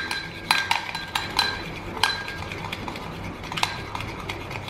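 Metal fork whisking coffee, sugar and hot water by hand in a ceramic bowl, clinking irregularly against the bowl's sides several times a second, each clink ringing briefly.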